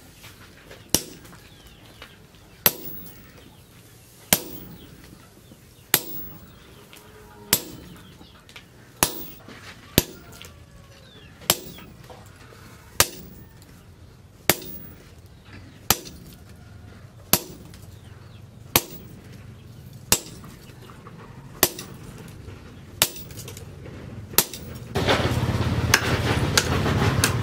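Hammer blows on a hot chisel cutting red-hot plough-disc steel on an anvil, a sharp metallic strike with a short ring about once every second and a half. Near the end a louder, continuous noise sets in.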